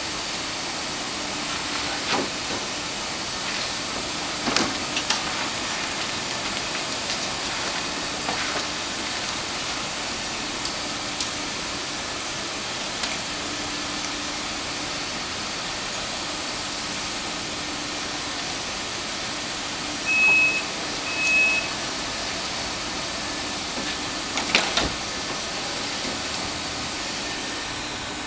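Steady hiss of an Allegro (Sm6) electric train standing at the platform, with a faint hum and a few scattered clicks. Two short high beeps about twenty seconds in.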